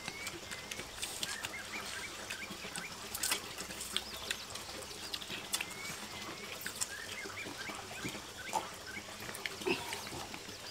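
Repeated short chirps over a faint steady wash of flowing water, with scattered light clicks.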